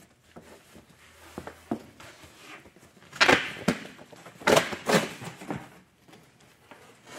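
A large stapled cardboard box being pulled open by hand. The cardboard lid scrapes and tears in two loud rasping bursts, about three seconds in and again about a second later, with small knocks and creaks before them.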